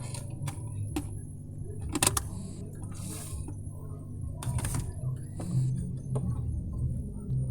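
A food container of dates being handled and opened: a series of sharp clicks and short rustles, the loudest about two seconds in, over a low steady hum.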